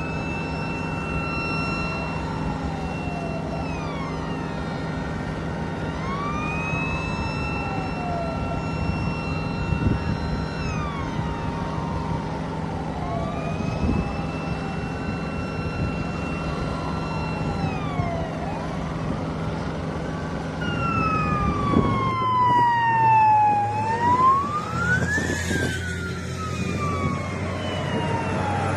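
Emergency vehicle sirens wailing in slow rise-and-fall cycles about every four to five seconds, changing to a quicker up-and-down sweep about twenty-one seconds in, over a steady low hum.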